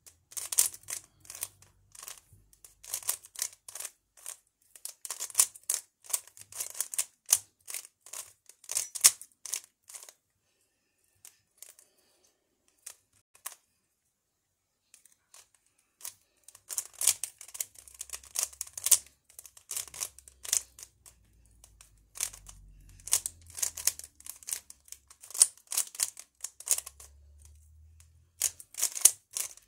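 Plastic 3x3 Rubik's cube being turned quickly by hand, its layers clicking and clacking in rapid runs of turns. The turning stops for several seconds about a third of the way through, then starts again.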